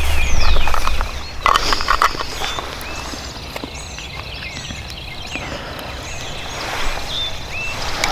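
Footsteps crunching through dry leaves on the forest floor, uneven and heaviest about a second and a half in. Songbirds call repeatedly in the background, and a low rumble fills the first second.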